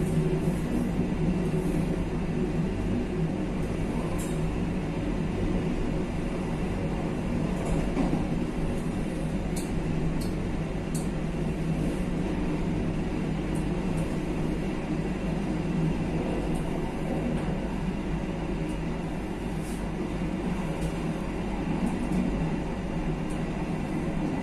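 KA Kaligung passenger train running along the line: a steady rumble of wheels on rail, with a few sharp ticks now and then.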